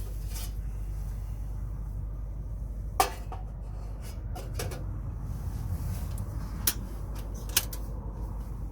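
A few sharp knocks and clatters of objects being handled, the loudest about three seconds in, over a steady low rumble.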